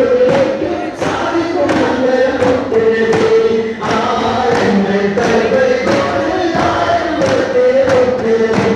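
Daff muttu: a group of voices singing in unison over daf frame drums struck in a steady beat.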